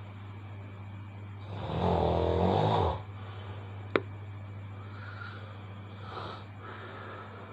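A person snoring loudly: one long, rough snore about two seconds in, then quieter breathing. A single sharp click comes about four seconds in, over a steady low hum.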